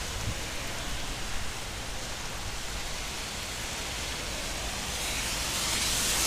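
Heavy monsoon rain pouring steadily, a sudden tropical downpour, getting louder near the end.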